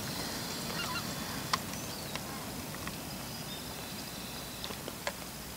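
Faint bird calls over quiet forest background, with a couple of short light clicks.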